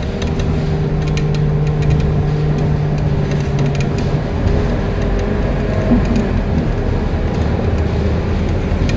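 Interior running sound of a Scania K230UB bus with a ZF Ecomat 6HP504C automatic gearbox under way: steady engine and driveline hum with road noise. A held low tone drops out about four seconds in, and a short rising tone comes about six seconds in.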